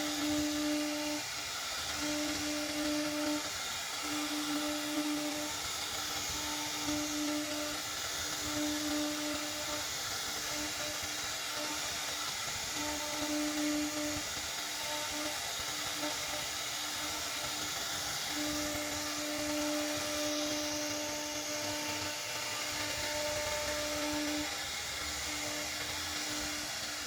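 CNC router cutting wood: a steady whining, hissing cutting noise, with a lower tone that stops and starts again every second or two.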